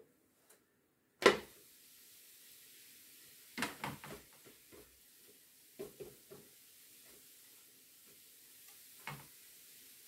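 Kitchen utensils knocking about while crêpes are made: one sharp knock about a second in, then a few scattered groups of lighter clacks and taps on the counter and crêpe maker, over a faint steady hiss.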